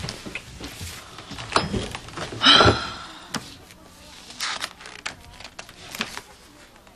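Paper rustling and small knocks as the pages of a large book are turned and handled at a desk, with one short squeak about two and a half seconds in.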